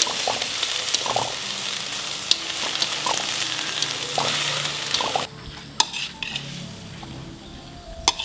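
Food sizzling in a hot pan while it is stirred, with a utensil clicking against the pan about once a second. The sizzle stops abruptly about five seconds in, leaving a few quieter clinks.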